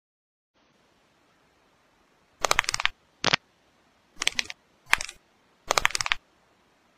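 Swivel office chair creaking and rattling in short rapid-clicking bursts, five of them about a second apart from a little over two seconds in, as someone grinds against it.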